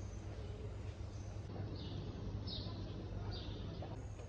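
Airport terminal room tone: a steady low hum under background noise, with three short high chirps about a second apart in the middle.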